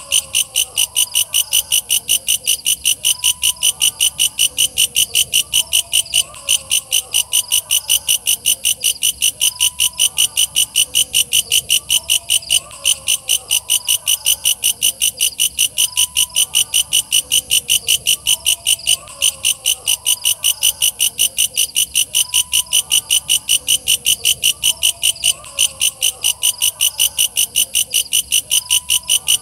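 Walang kecek katydid calling: a loud, steady train of rapid, shrill high-pitched chirps, about three a second.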